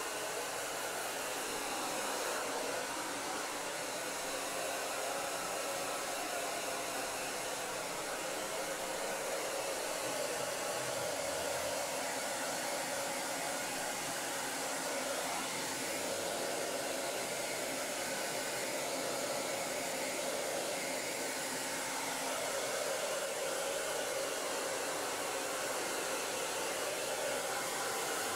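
Handheld hair dryer running steadily, blowing air onto a wet dog's coat.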